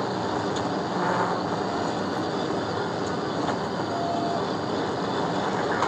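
Steady drone of a patrol car driven at about 120 mph, heard inside the cabin: engine, tyre and wind noise blended into an even rush.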